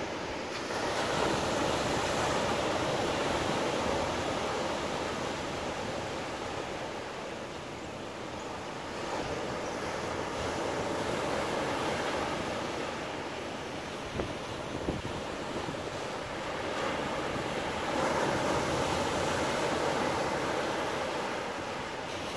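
Ocean surf breaking on a sandy beach and against rocks: a continuous rushing wash that swells louder and eases off roughly every eight seconds.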